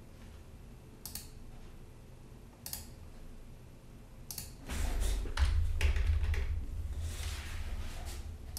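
Three single computer mouse clicks about a second and a half apart, then a fast run of keystrokes on a computer keyboard with dull thuds beneath, from about halfway through nearly to the end.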